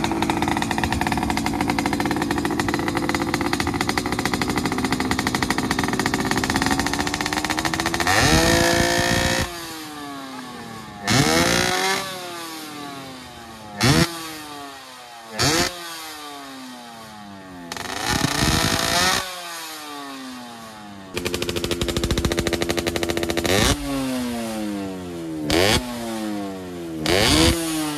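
Yamaha RD350 two-stroke twin with aftermarket expansion chambers, running steadily, then revved in a series of quick throttle blips that rise sharply and fall back to idle, one held longer about three-quarters of the way through.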